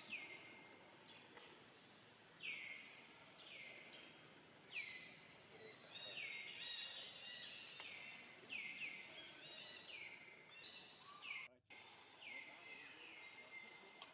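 Birds calling in the background: short chirps that slide downward, repeated about once a second and sometimes overlapping, over a faint outdoor hiss. The sound cuts out for a moment near the end.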